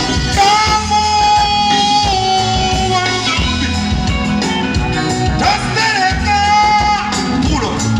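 Live band music at a sound check: a voice sings long held, wavering notes over electric guitar and a steady bass and drum beat.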